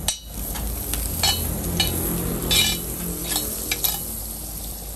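Hot oil sizzling in a wide flat pan while a spatula scrapes and stirs across it in several short strokes.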